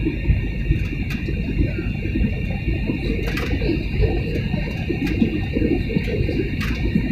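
Airliner cabin noise in flight: a steady low rumble of jet engines and airflow with a steady high whine over it, and a few faint ticks.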